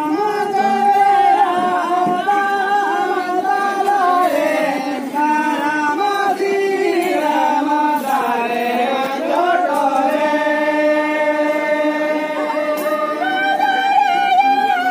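A group of voices singing a Santali folk song together, with long held notes that slide between pitches.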